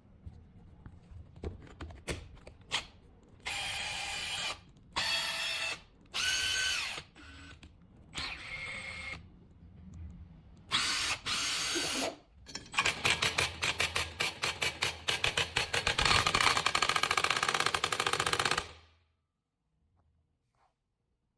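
Makita DTW1001Z cordless impact wrench run in short trigger bursts, its motor and gears spinning with a whine. It then runs for about six seconds with a rapid, loud hammering rattle as the impact mechanism strikes, and stops abruptly.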